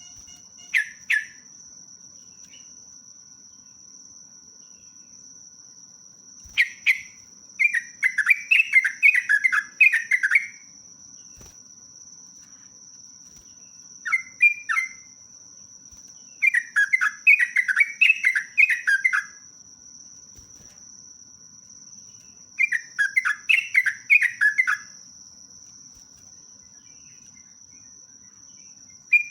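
Yellow-vented bulbul (trucukan) singing in repeated phrases of rapid, bubbly warbling notes, a few seconds apart. This is the long continuous 'ropelan' song. A steady high thin tone runs underneath.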